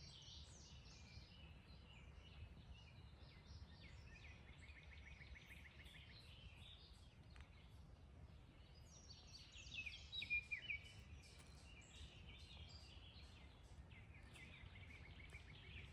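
Faint songbirds singing, with many short chirps and trills, over a low steady background rumble. A louder run of song comes about ten seconds in.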